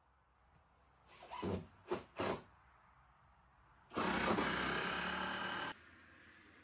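Cordless drill running in short spurts: a brief rising spin and two quick bursts, then a louder steady run of about a second and a half that stops abruptly.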